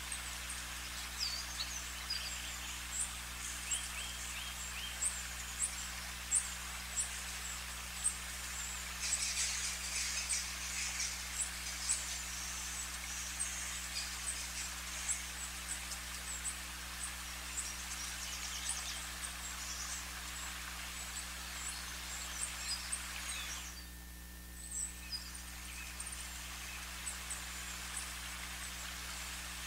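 Outdoor ambience: many short, high chirps of small birds over a steady hiss and a low electrical hum. The hiss and chirps dip briefly about three-quarters of the way through.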